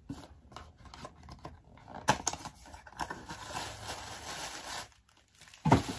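Small cardboard gift box being opened and pink tissue paper rustled and unfolded: scattered clicks and crinkles, a sharper click about two seconds in, then a dull thump near the end.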